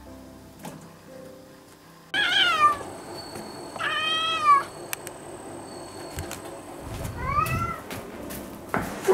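A domestic cat meowing three times, each call bending in pitch, a second or more apart. Soft background music plays for the first two seconds, before the first meow.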